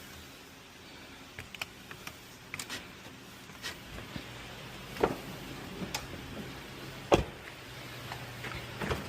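A series of scattered clicks and knocks, two of them louder thumps about five and seven seconds in, over a faint steady low hum.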